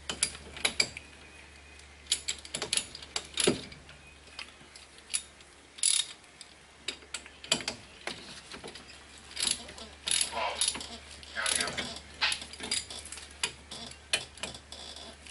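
Hand ratchet clicking in irregular runs with short pauses as the front brake bracket bolts are tightened.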